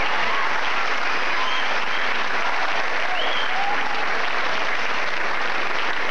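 Large theatre audience applauding steadily, with a few faint shouts from the crowd.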